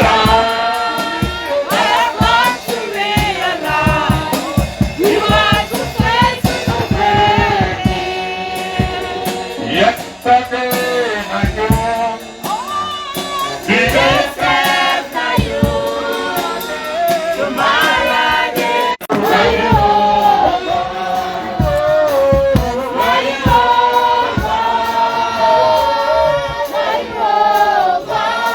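A choir and congregation singing a gospel worship song with instrumental backing and a steady beat.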